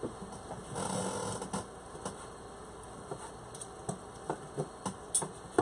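Kitchen knife slicing cooked chicken, knocking against the cutting board in irregular sharp clicks, the sharpest near the end. A brief rustle comes about a second in.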